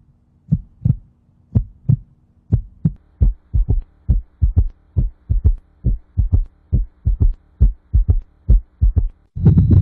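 Recorded human heart sounds: paired lub-dub beats, about one beat a second at first and quicker from about three seconds in, over a faint steady hum. Just before the end the beats give way abruptly to a loud, continuous low rumbling noise.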